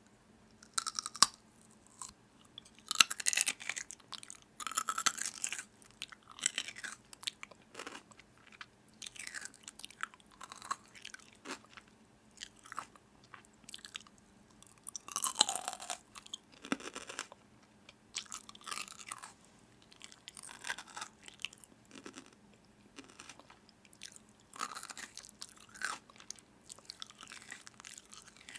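Irregular crunching and crackling in short bursts with brief quiet gaps, like crisp food being bitten and chewed.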